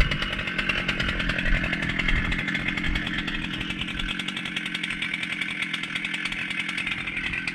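Husqvarna chainsaw, a high-compression saw mounted on an Alaskan chainsaw mill, running steadily just after a hard start while it warms up.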